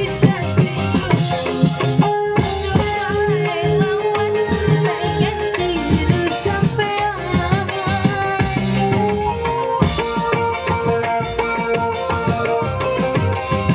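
Live dangdut band music: an electronic keyboard melody over hand drums and a rattling shaker beat.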